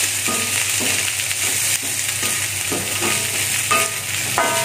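Fried rice sizzling in a steel wok while a wooden spatula scrapes and turns it, about two strokes a second, over a steady hiss of frying.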